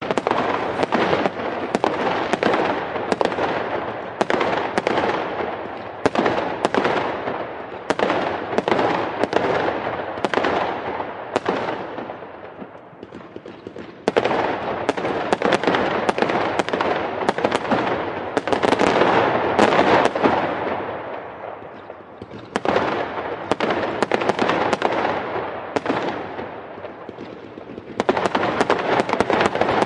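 Fireworks going off: a rapid series of sharp bangs with crackling between them, dying down twice for a moment before building again.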